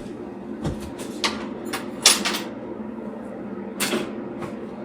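Scattered sharp clicks and knocks of small hard objects being handled, about five in all, the loudest about two seconds in, over a steady low hum.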